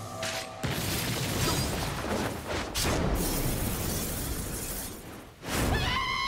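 Anime battle sound effects: a long, dense, rushing din of lashing bladed chains and crashing impacts, with a sharp surge about three seconds in. A wavering pitched cry rises near the end.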